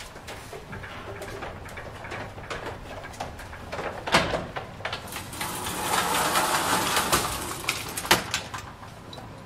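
Folding steel scissor gate of an old freight elevator being drawn across by hand: metal rattling and sliding that swells in the middle, with a sharp clank about four seconds in and another near the end.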